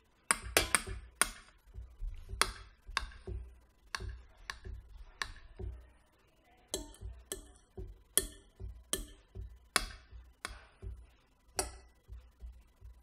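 Cutlery clinking and scraping on dinner plates during a silent meal: irregular sharp clicks, sometimes a few in quick succession, with a short lull about halfway through.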